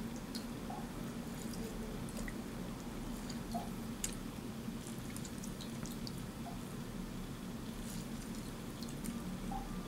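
A lime squeezed by hand over a dish of soy sauce: faint squishes and scattered small ticks and drips of juice, over a steady low hum.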